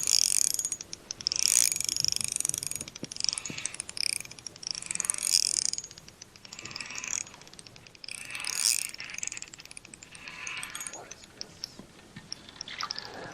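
Spinning reel drag, a Shimano Soare XR fitted with a greased felt drag washer, clicking rapidly in several short runs as a hooked bluegill pulls line off the spool.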